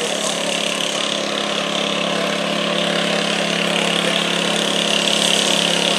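A 1980 Cub Cadet garden tractor's engine running steadily under load as it drags a weighted stoneboat sled down the pulling track.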